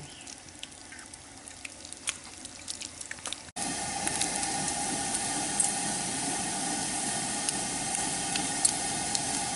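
Bacon sizzling and crackling on a griddle over a Coleman camp stove, with the burner hissing underneath. It is faint with scattered crackles at first, then about three and a half seconds in turns suddenly into a loud, steady sizzle with pops.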